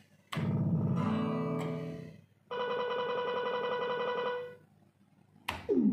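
Cirsa 'Piratas del Caribe' slot machine playing a short electronic jingle of descending notes. After a brief pause it sounds a steady, fast-warbling electronic tone for about two seconds while its display adds bonuses to the counter.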